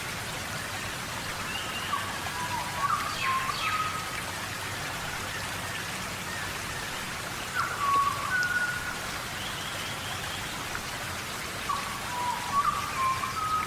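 Steady tropical rainforest rain, an even hiss of falling drops. Over it a bird calls a short phrase of whistled notes three times, about every five seconds.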